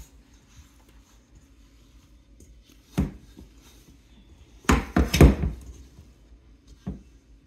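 Stainless steel mixer bowl knocking against a granite countertop as sticky dough is scraped out of it by hand: one knock about three seconds in, a cluster of louder knocks and thuds around five seconds, and a faint knock near the end.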